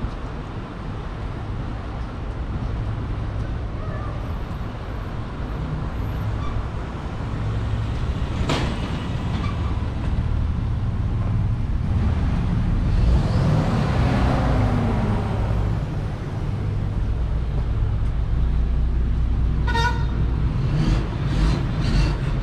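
Street traffic: a steady low rumble, with a vehicle passing by in a broad swell of noise around the middle. A short horn toot sounds near the end.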